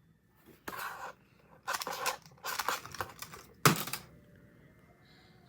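Plastic Rubik's cube being twisted quickly, its layers clicking and rattling in three short flurries, then one sharp, louder clack about three and a half seconds in.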